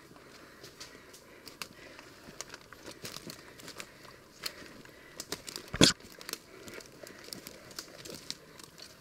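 Footsteps crunching and rustling through dry needle litter and twigs, a run of small crackles with one louder knock about six seconds in.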